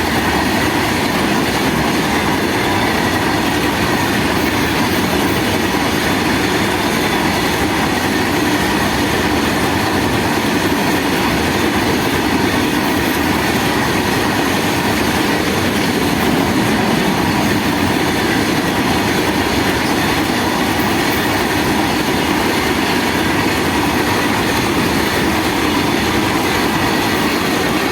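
A train rolling steadily past at close range, its wheels running on the rails with a continuous loud rumble and clatter that holds unbroken throughout.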